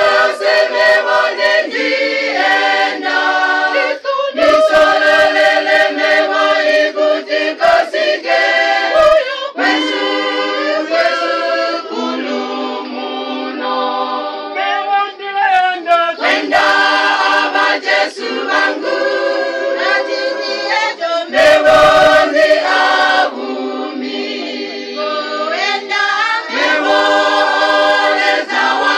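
Church choir singing a hymn a cappella in harmony, with no instruments.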